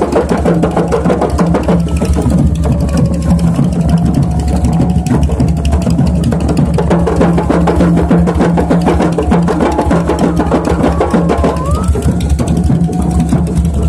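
A group of rebana frame drums beaten by hand in a fast, steady rhythm, with a steady low drone underneath.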